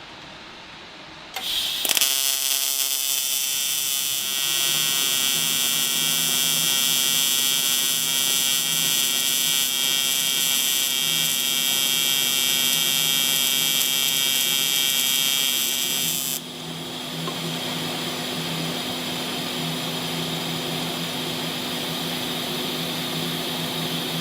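AC TIG welding arc on aluminum, set to 150 AC frequency and 25 balance, striking about two seconds in with a loud steady buzz. It holds for about fourteen seconds, then drops to a softer buzz for the rest.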